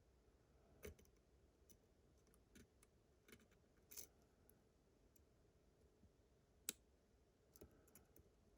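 Faint, scattered clicks of a pick working the discs inside an Abus GDS disc-detainer lock, as the discs are turned and set one by one. The sharpest click comes about two-thirds of the way through.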